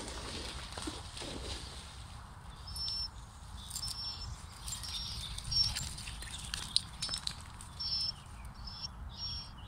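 Songbirds singing: short, high chirps and phrases recurring about once a second, over a low rumble.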